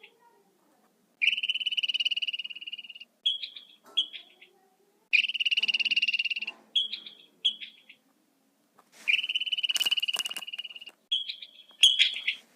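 A frog calling in high pitched pulsed trills: three long trills of about a second and a half, each followed by two short ones.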